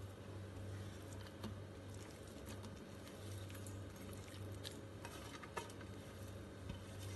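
Faint soft pattering and light clicks as grated vegetables and chopped herbs are tipped from a steel plate into a steel mixing bowl, over a low steady hum.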